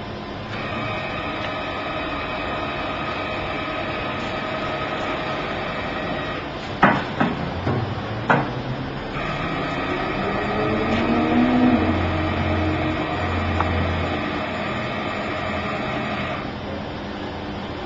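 Automatic sugar-mill roller-arcing welder running: a steady electric hum that cuts out about six seconds in and comes back about three seconds later, with a few sharp cracks in the gap. The stop and restart is the wire feeder switching off and on as the weld head passes over the roller teeth.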